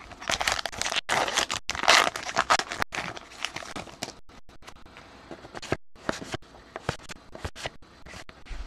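A trading-card pack wrapper being torn open and crinkled, with crackling for about the first three seconds. After that come scattered light flicks and ticks as cards are slid through by hand.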